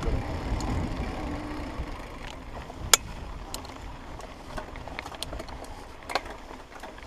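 Mountain bike rolling along a dirt singletrack trail: a low rumble of tyres on dirt, with scattered sharp clicks and rattles from the bike. The sharpest click comes about three seconds in.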